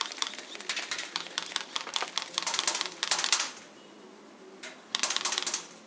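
Airsoft guns firing: rapid sharp clicking shots, scattered at first and then in a dense burst that stops about three and a half seconds in, followed by another short burst near the end.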